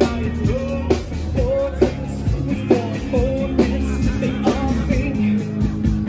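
Live rock band playing a song: drum kit, bass and electric guitar, with a voice singing over it. The loudest drum hits fall a little under a second apart.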